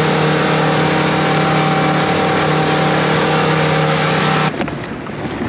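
ATV engine running at a steady speed with a constant pitch, cutting off suddenly about four and a half seconds in.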